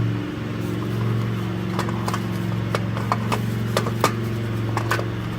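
Scattered metallic clinks and knocks of a car starter motor being worked and wrestled out past an engine mount, over a steady low mechanical hum.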